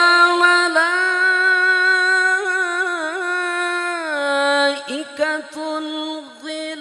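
Male qari reciting the Qur'an in the melodic tajwid style through a microphone and loudspeakers, holding one long ornamented note. The note wavers, dips slightly about four seconds in, and breaks off briefly around five seconds before the voice picks up again.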